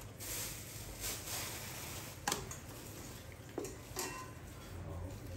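A few scattered light knocks and clinks of household things being handled, like kitchenware, with one sharper knock a little over two seconds in.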